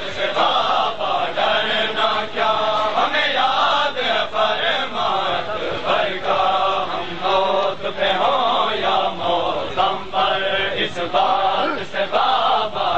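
A crowd of men chanting a mourning refrain, the same short phrase repeated about once a second.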